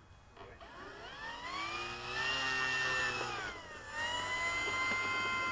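The electric brushless motor and propeller of an E-flite Cessna 150 RC model plane whining as the throttle is run up. The pitch rises from about a second in, eases off briefly after three seconds, then climbs again and holds steady.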